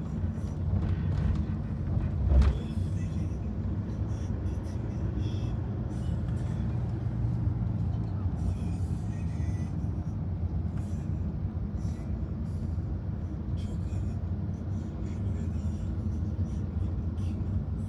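Road and engine noise inside a moving car: a steady low rumble, with a single thump about two and a half seconds in.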